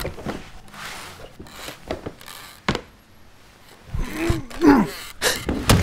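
Wordless groans and grunts from a voice, one rising and falling in pitch a little after the midpoint, with a sharp click about three seconds in and another near the end.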